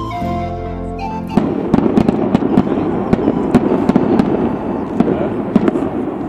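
Music for about the first second and a half, then a rapid barrage of firecrackers going off: many sharp bangs over a continuous crackle.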